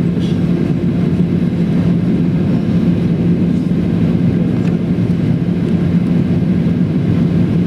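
Steady cabin drone of a Boeing 737-800 heard from inside the passenger cabin: CFM56 engine noise and airflow, with a constant low hum.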